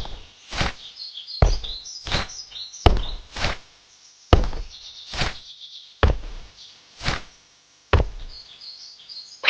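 A series of sharp knocks with a deep thud, about eleven in all, coming a little more than once a second, with faint bird-like chirps between the first few.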